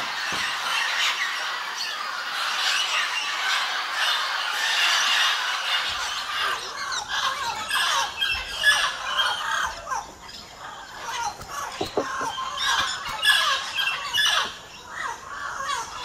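A flock of parrots calling together, a dense chatter of harsh, overlapping squawks. About six seconds in it thins to fewer, separate squawks over a low background rumble.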